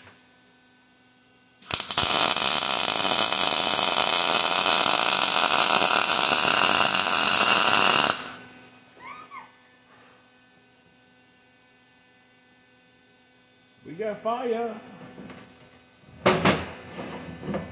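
MIG welder arc burning on steel as a timing chain is welded to a timing gear: a steady crackling hiss that starts abruptly about two seconds in and cuts off about six seconds later. A sharp metal clank follows near the end.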